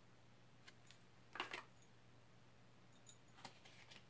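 Tarot cards being handled: one brief rustle of a card about a second and a half in, then a few faint small taps, over a low steady hum.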